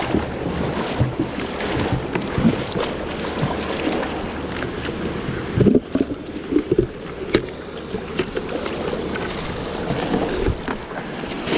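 Creek water rushing and splashing, with irregular short splashes and knocks through it.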